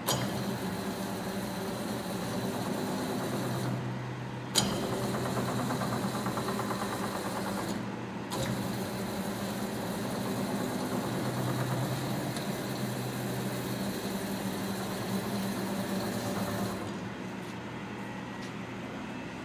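Large Binns & Berry TB engine lathe running, its drive and gearing giving a steady mechanical hum with low tones. There is a sharp clunk about four and a half seconds in, and the running sound drops quieter near the end.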